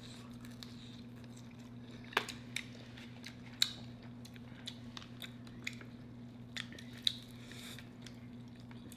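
Chewing fried chicken: quiet mouth sounds with several short, sharp crunches and clicks scattered a second or so apart, over a steady low hum.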